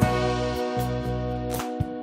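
Instrumental background music: held notes with a few light percussive hits.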